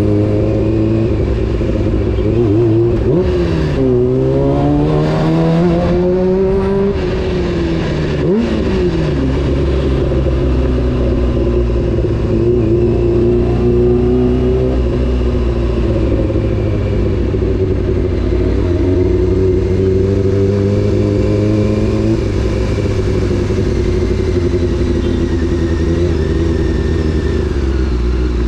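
Honda CBR600 F4's inline-four engine on the move. Its pitch dips about three seconds in, then climbs steadily as the bike accelerates. It drops sharply at around eight seconds, then runs fairly steady and eases lower about twenty-two seconds in.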